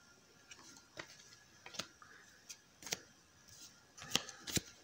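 Light, irregular clicks and taps of trading cards being handled and swapped by hand, about half a dozen, with the sharpest two near the end.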